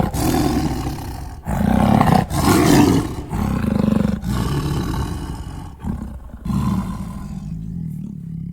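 A big cat roaring repeatedly: a run of loud roars with short breaks between them.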